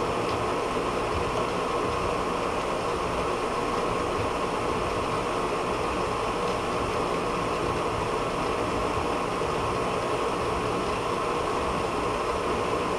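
A steady machine hum and hiss that holds one constant pitch throughout, with no starts or stops.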